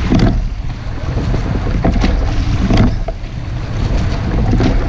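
Rowing shell under way, with a steady rush of wind on the microphone and water along the hull. The oars knock in their oarlocks a few times as the crew takes strokes.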